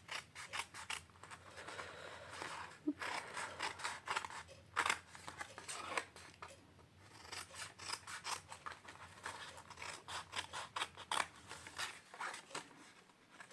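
Scissors snipping through card in a long run of short cuts, trimming away unwanted pieces.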